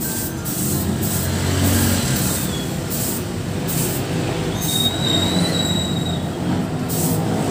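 Gravity-feed spray gun hissing with compressed air in repeated trigger pulls, about a second each, as a coat of primer is sprayed onto motorcycle parts, over a low steady drone.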